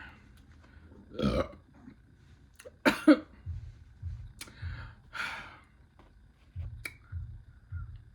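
A person burps about a second in while eating, followed by loud wet mouth smacks around three seconds in and more smacking and chewing.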